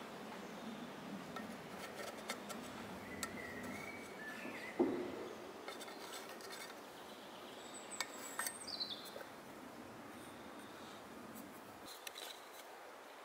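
Glass jar rubbing and knocking on a split birch log as its base is traced around, with soft scratching and small clicks and one sharper knock about five seconds in. A few faint high chirps are heard.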